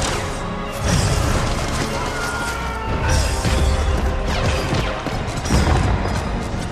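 Action-film battle soundtrack: loud music under repeated booms and crashes of explosions.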